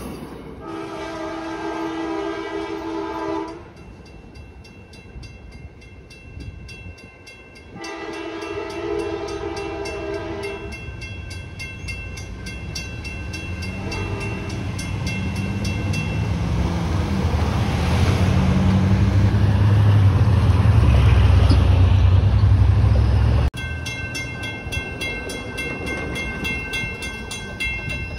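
Trinity Railway Express commuter train's multi-note horn sounding two long blasts and a short one as the train pulls away from the grade crossing, while the crossing bells ring steadily. A low rumble builds from about twelve seconds in and is the loudest sound until it cuts off abruptly near the end.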